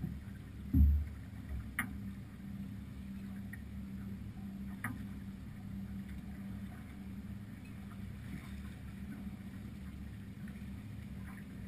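Steady low rumble of wind and water on a sailing yacht under way, muffled as through a camera's waterproof housing, with one low thump about a second in and a few sharp clicks from the deck or rigging.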